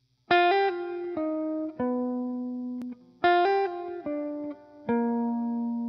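Background music: a plucked-string melody of single notes that each ring and fade, a short phrase played twice.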